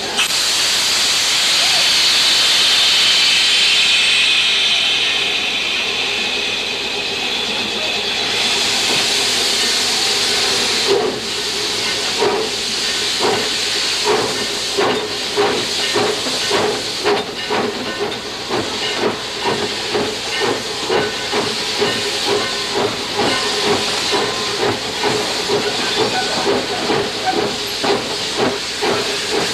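Steam hissing loudly in the cab of the 4-4-0 steam locomotive Reno. From about eleven seconds in, a steady rhythm of exhaust chuffs and clanks runs at roughly one to two a second as the engine works.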